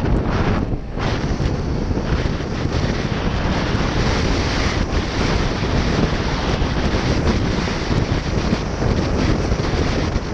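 Heavy wind noise buffeting a GoPro Session camera's microphone on a motorcycle at road speed, a dense steady rush that covers the engine. It eases briefly about a second in.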